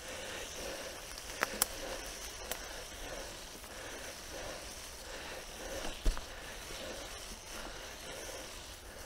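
Mountain bike riding along a dirt trail: a steady hiss of tyres and rattle, broken by a few sharp clicks and knocks, the loudest about six seconds in.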